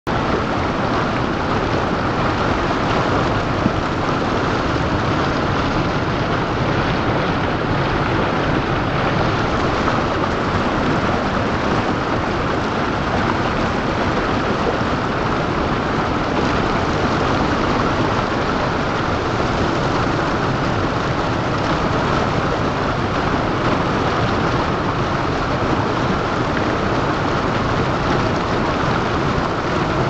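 Rushing water of a rocky creek cascade, a steady, unbroken rush of white water.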